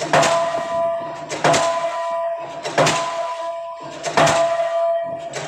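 K35 diesel pile hammer driving a concrete spun pile: four sharp blows about 1.4 seconds apart, in an even rhythm. A steady ringing tone carries on between the blows.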